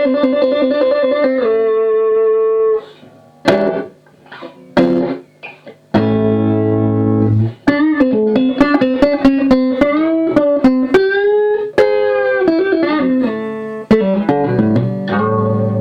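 Electric guitar on its front (neck) pickup, played through the lead channel of a 1973 Marshall 2061 Lead and Bass 20 amplifier set to tone 6, volume 7. It starts with held notes with vibrato, then a few short separate plucks, then a run of bent notes, and near the end fuller notes ring together.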